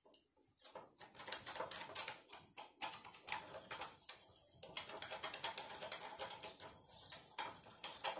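Quick clicking and scraping of a utensil stirring against the wall and bottom of a small plastic measuring cup, a rapid patter of small ticks with brief pauses.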